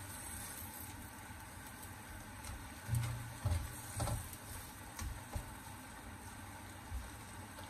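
A spatula stirring spinach in a little simmering broth in a nonstick wok: a steady low bubbling hiss, with soft knocks of the spatula against the pan about three, four, five and seven seconds in.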